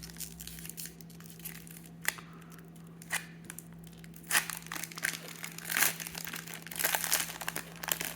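Trading-card pack wrapper being torn open and crinkled by hand, in irregular crackles that grow louder in the second half.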